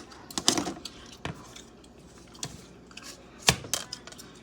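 Hard clicks and knocks of the lint filter being handled and pulled from a portable clothes dryer, the loudest a sharp click about three and a half seconds in.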